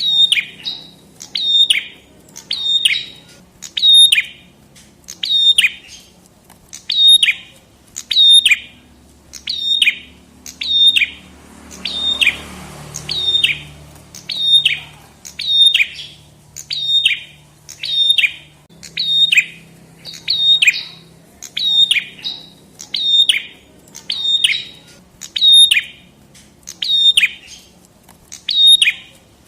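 Song of a prenjak kepala merah (red-headed prenjak, a small tailorbird-like songbird): one sharp, high note sweeping quickly down in pitch, repeated over and over at about one and a half notes a second in a steady chant.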